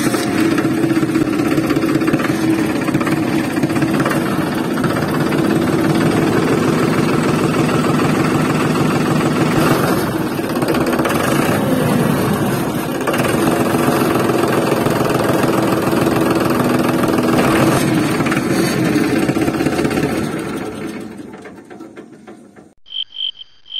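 An engine running steadily with a fast, even pulse, fading away over the last few seconds.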